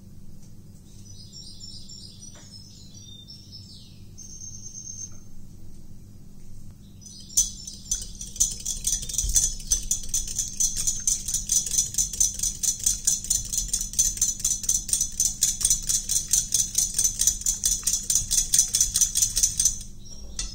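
Wire balloon whisk beating egg mixture in a glass bowl: fast, even clinking strokes of the wires against the glass, about four a second. The strokes start about a third of the way in and stop just before the end.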